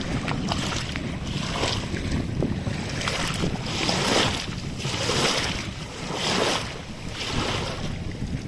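Rushing floodwater with wind buffeting the microphone; the hiss swells and eases about once a second.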